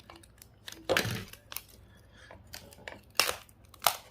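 Hands working apart the small parts of a GPS unit: scattered clicks, scrapes and crinkling, with the loudest about a second in and two sharper ones near the end.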